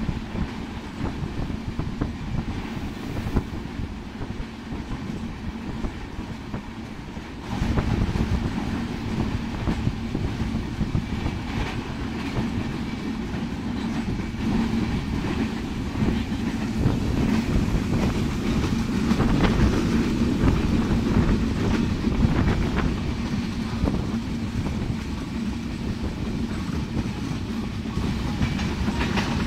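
Running noise of a moving passenger train heard from aboard: the wheels rumble on the track with a steady clickety-clack over the rail joints. It gets louder about seven seconds in and stays so.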